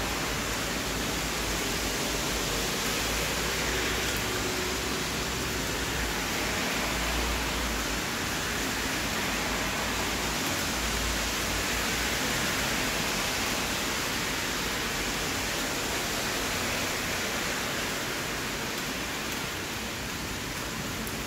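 Steady rain falling, an even hiss, with a faint low rumble coming and going in the first half.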